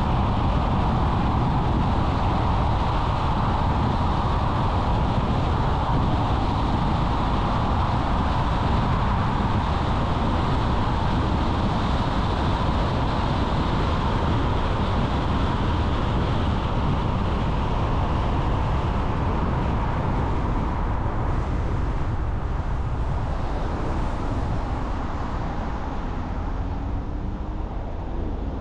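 Steady road noise of a car driving at speed: tyre roar and engine hum. It eases slightly near the end.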